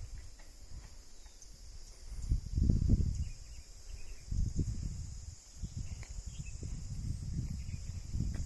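Wind gusting on the microphone in low, uneven rumbles, strongest two to three seconds in, over a steady high-pitched chorus of insects.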